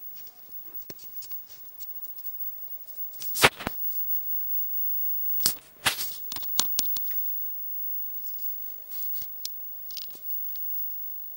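Tinsel and the branches of a silver artificial Christmas tree rustling and crinkling as a kitten paws and moves among them, in a few short bursts: the loudest about three and a half seconds in, a cluster around six seconds, and smaller ones near the end. A faint steady hum lies underneath.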